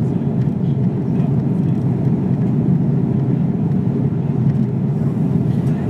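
Steady low drone of an Airbus A330's jet engines and rushing airflow, heard inside the passenger cabin during descent.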